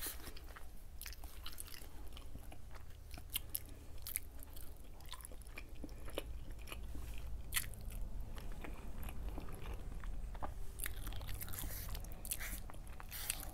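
A person chewing food close to a clip-on microphone, with irregular soft mouth clicks throughout.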